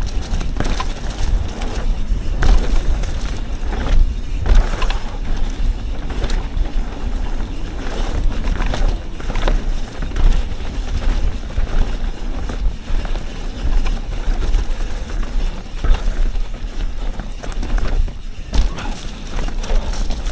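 Yeti SB 150 29er full-suspension mountain bike riding a dirt trail: tyres rolling over the ground, with frequent short knocks and rattles from the bike over bumps. A heavy low rumble of wind on the microphone runs underneath.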